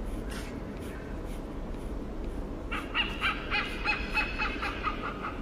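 Hornbill calling: a rapid run of repeated cawing notes, about four or five a second, starting a little under three seconds in.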